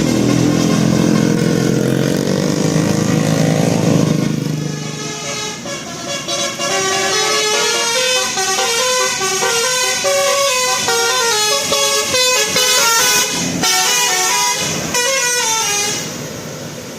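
Bus telolet horn (Basuri multi-tone horn kit) playing a melody of quick stepped notes, starting about five seconds in and stopping near the end. Before it, a loud low drone slowly rises in pitch.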